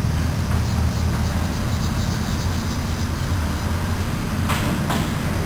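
Steady low machine-like rumble, with two short hissing strokes about four and a half seconds in.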